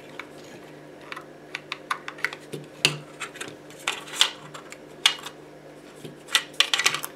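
Irregular light clicks and taps of small plastic parts being handled: a blood pressure monitor's circuit board and air pump being worked loose inside its plastic housing. A faint steady low hum lies underneath.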